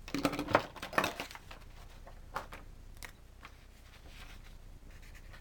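Sheets of paper being handled and rustled, loudest in the first second or so, then a couple of light clicks and faint pen scratching on paper.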